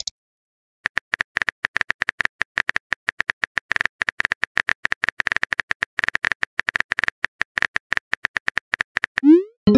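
Smartphone keyboard typing sounds: rapid, irregular key clicks starting about a second in, as a message is typed letter by letter. Near the end, a short rising swoop plays as the message is sent.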